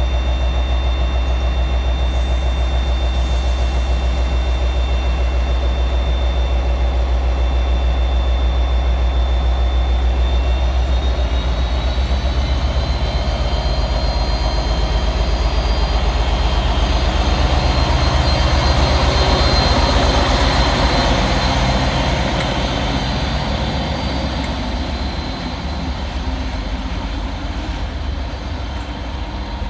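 Class 57 diesel locomotive 57305, with its EMD two-stroke V12 engine, running at a steady low throttle, then powering up about a third of the way in as it pulls away from the station. The engine note rises, is loudest just past the middle, then fades as the locomotive moves off.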